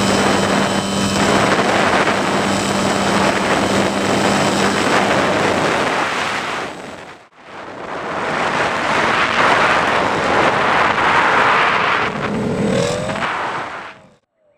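Rushing airflow and the running electric motor and propeller of a Skywalker FPV plane in flight, picked up by its onboard nose camera, with a steady low tone through the first few seconds. The sound drops out abruptly about halfway, comes back, shifts briefly in pitch near the end, then cuts off just before the end.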